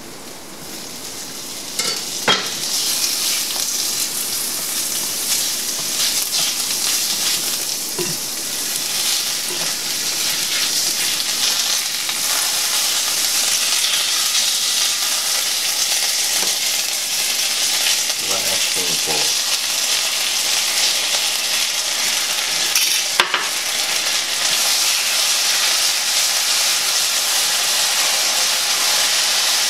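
Smoked chicken wings sizzling in a hot skillet of melted butter and hot pepper jelly as they are glazed. The sizzle comes up strongly about two seconds in and stays steady, with a couple of sharp clicks from the metal tongs against the pan.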